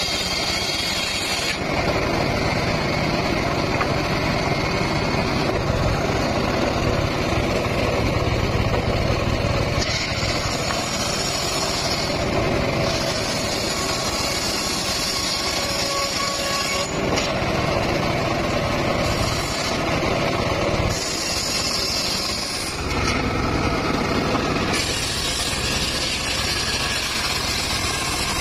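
Engine-driven homemade circular saw bench running steadily while its large blade rips mahogany planks; a higher whine comes and goes several times as each board is fed through the blade.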